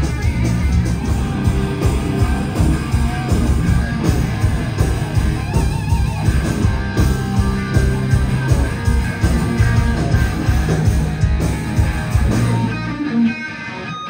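A live hard rock band playing loud: electric guitars over drums and bass. About 13 seconds in, the drums and bass drop out and the level dips.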